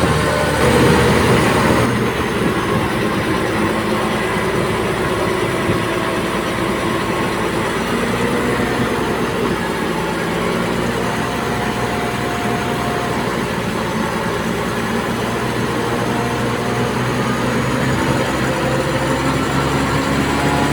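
Komatsu D58P crawler bulldozer working: its diesel engine running steadily with the clatter of its steel tracks, a little louder about a second in.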